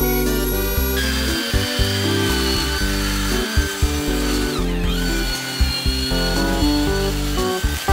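High-pitched whine of a handheld electric rotary tool carving and sanding a wooden sculpture, dipping in pitch briefly about halfway through, with background music throughout.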